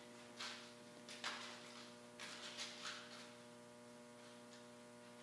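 Near silence: a steady electrical hum as room tone, with a few faint, soft noises in the first three seconds.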